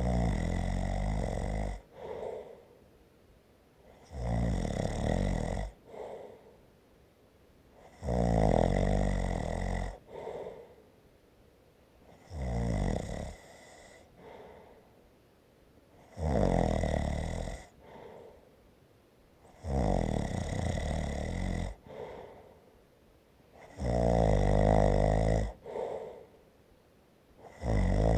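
A person snoring steadily, a loud rattling snore about every four seconds, each followed by a brief softer breath sound.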